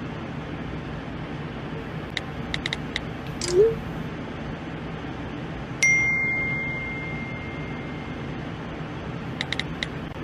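Smartphone texting sounds: a few quick keyboard taps, a short rising whoosh as a message is sent, then a single bright ding of an incoming message that rings and fades over a couple of seconds. More taps and another send whoosh come near the end, over a steady low hum.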